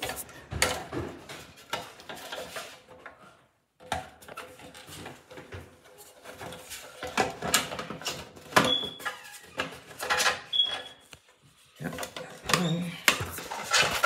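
Better Living TRIO shower dispenser being worked onto its wall mounting piece by hand: a run of irregular clicks, knocks and scrapes, with two short squeaks in the second half.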